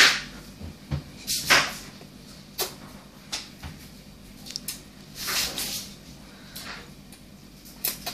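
A young child slurping strands of spaghetti into his mouth: a series of short slurps, loudest at the start and about a second and a half in, with a longer one about five seconds in.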